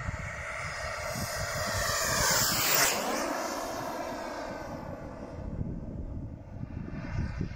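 Behotec 180 turbine of a SebArt Avanti S model jet whining in a fast pass. It grows loudest about three seconds in, drops in pitch as the plane goes by, then fades away.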